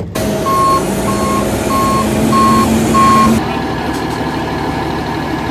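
Concrete mixer truck backing in, its reverse alarm beeping five times at an even pace over the running engine. The beeping stops about three seconds in while the engine keeps running.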